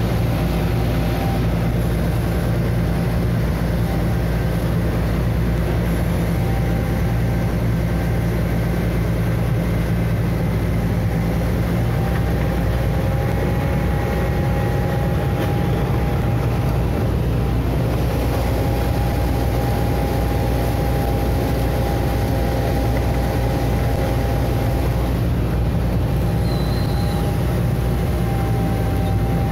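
Hitachi Zaxis 130 amphibious excavator's diesel engine running steadily: a constant low drone with a steady higher whine over it.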